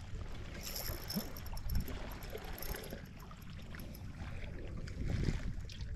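Water lapping and splashing against the hull of a small skiff, with a low rumble of wind on the microphone.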